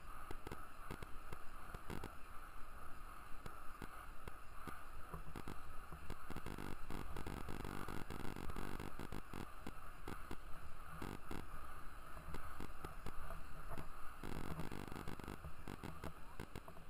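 Small wheels of freeline skates rolling over an asphalt path: a steady gritty rumble with many small clicks and knocks from bumps and grit in the surface.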